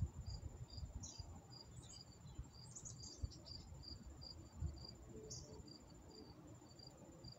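Faint insect chirping outdoors: a regular chirp about three times a second over a steady high-pitched trill, with a low rumble and a few soft thumps underneath.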